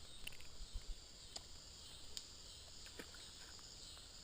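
Faint steady chirring of insects, with a few light clicks about a second apart.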